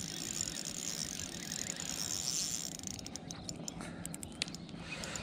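Daiwa TD Sol III 2500 spinning reel being wound to retrieve a hooked fish: a steady gear whir, with a run of quick clicks about three seconds in.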